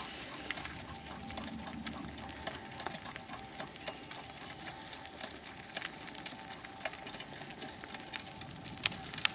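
A dog-drawn Chalo sulky rolling along a dirt trail behind a trotting dog: a steady rolling rumble with many irregular small clicks and rattles.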